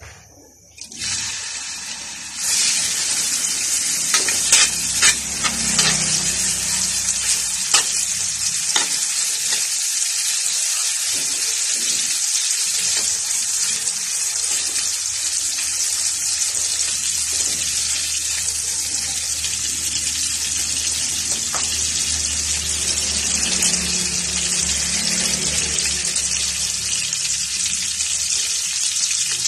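Food frying in hot oil in a metal wok: the sizzle starts about a second in as the pieces go into the oil, grows louder, then holds steady. A metal spatula stirs, with a few sharp taps and scrapes on the pan early on.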